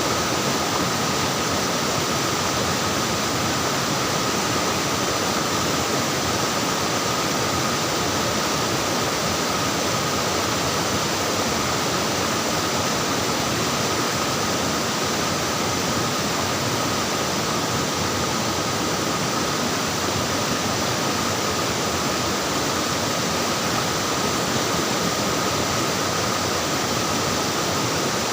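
Flowing water splashing and rushing steadily, with no change in level, and a thin steady high tone running through it.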